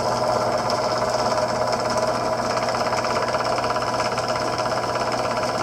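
Electric drill running steadily with a fast rattling chatter as it cuts a hole through thin plastic.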